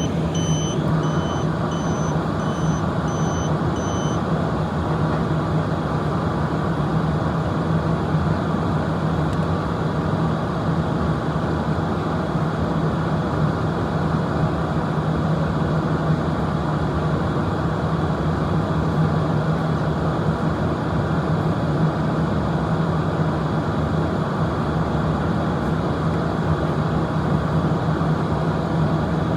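Steady machinery noise with a low drone throughout. For the first four seconds or so, a continuity tester gives high-pitched beeps in an even on-off rhythm.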